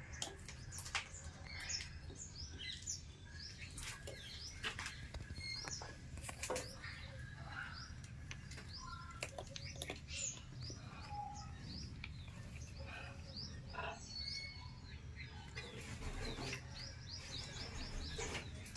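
Birds chirping: many short, quick chirps scattered throughout, with a few sharp clicks and a steady low hum underneath.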